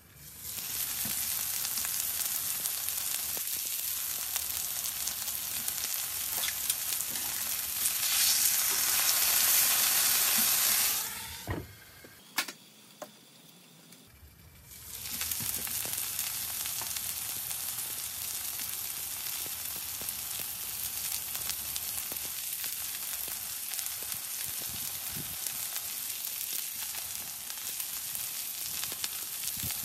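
Ribeye steaks sizzling steadily on hot cast iron in a kamado grill, the high-heat searing of the meat. The sizzle swells a little, stops for about three seconds near the middle with a single click, then carries on.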